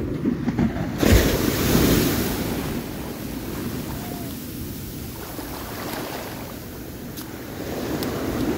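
Ocean surf on a beach: a wave breaks with a sudden rush about a second in, then washes up and slowly fades. Another swell of surf builds near the end.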